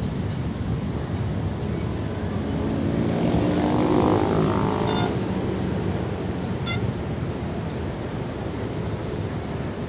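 Steady low rumble of city traffic and wind, with an engine passing by, loudest about four seconds in, its pitch sliding as it goes past.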